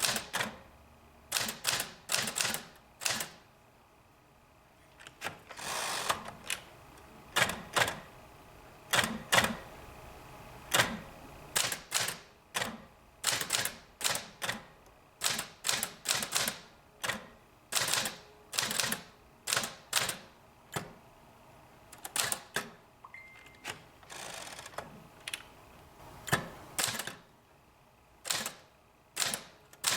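Sears Forecast 12 manual portable typewriter being typed on: quick, irregular clusters of sharp key strikes with short pauses between them, and a couple of longer, noisier sounds among them.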